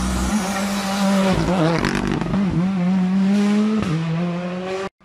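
Rally car engine at high revs as the car speeds past on a wet tarmac stage, with tyre hiss on the wet road. The engine note dips and climbs back a few times, and the sound cuts off suddenly near the end.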